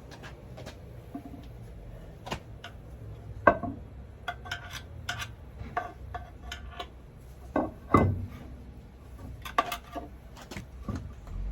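Metal parts and hand tools clinking and knocking irregularly while a heavy truck's flywheel is handled and fitted, with two louder knocks about three and a half and eight seconds in.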